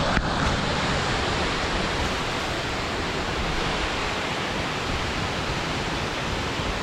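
Steady rush of Spray Falls, water pouring off the cliff, with a brief knock right at the start.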